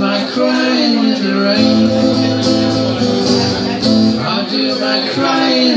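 Amplified acoustic guitar strummed live, with a man singing long held notes over it.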